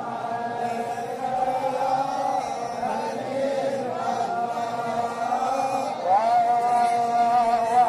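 Islamic devotional chanting: a single voice holding long, wavering, ornamented notes, sliding up into a new phrase about six seconds in.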